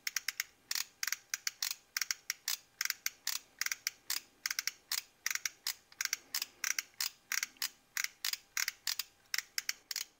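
Fulljion 60W automatic soldering gun's trigger-driven solder feed clicking rapidly and steadily, several clicks a second, as the trigger is pumped again and again to advance the solder wire through the feed tube to the tip.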